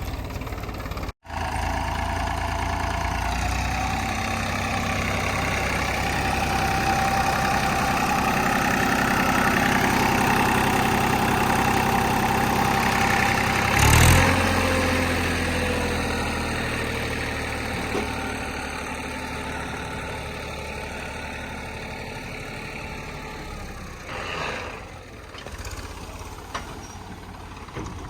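Backhoe loader's diesel engine running and revving up under load as it works, with a loud knock about halfway through. Afterwards the engine eases off and slowly quietens.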